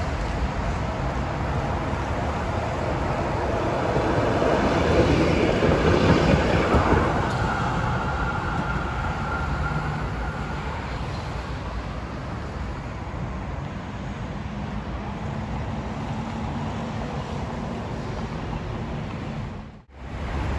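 Electric tram running on street rails, getting louder as it comes close about four to seven seconds in, with a thin steady whine for a few seconds after.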